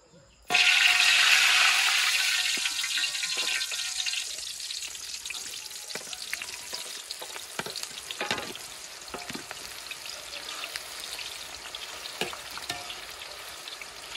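Hot oil in a wok bursts into loud sizzling about half a second in as sliced food is dropped in. The sizzling slowly settles into steady deep-frying, with light knocks of a wire spider skimmer against the wok as the pieces are stirred.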